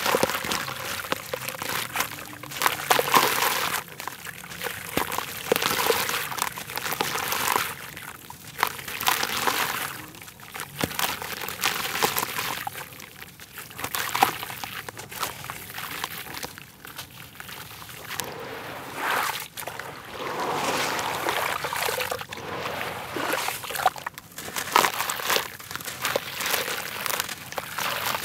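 A soaked block of red dirt crumbled by hand in a basin of muddy water: wet grit crunching as it breaks and crumbs pouring and splashing into the water, in repeated uneven surges.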